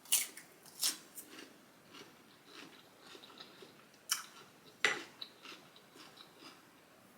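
Close-miked chewing and eating: a person eating, with four sharp, crisp crunching bites spaced among quieter wet mouth sounds.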